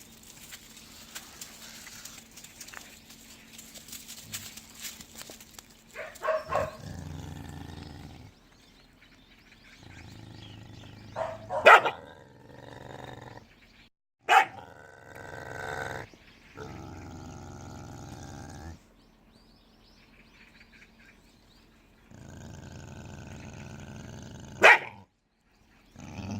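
A dog nagging at another dog: drawn-out growly grumbles in separate stretches of a few seconds, broken by quiet gaps, with a few sharp barks among them.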